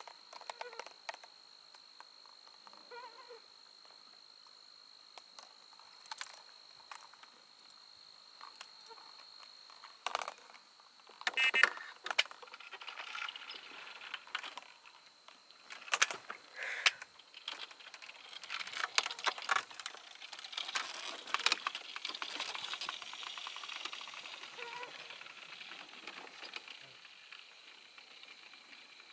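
A steady high-pitched drone like an insect trill, with a run of sharp rattling clicks starting about ten seconds in that grows dense and then thins out near the end.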